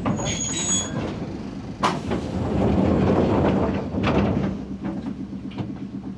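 Enshu Railway 30-series electric train under way, heard on board: its nose-suspended traction motors make a steady low hum with a held tone over the running noise. A brief high squeal comes under a second in, and sharp knocks come about two and four seconds in.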